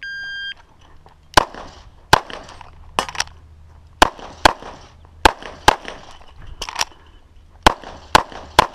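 Electronic shot-timer start beep, then a CZ 75 SP-01 9mm pistol firing about thirteen shots, mostly in quick pairs.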